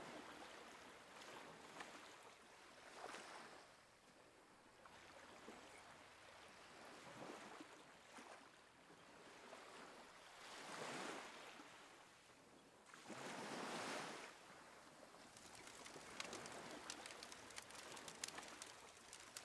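Faint surf washing onto the beach in slow swells every few seconds, with small sharp crackles in the last few seconds.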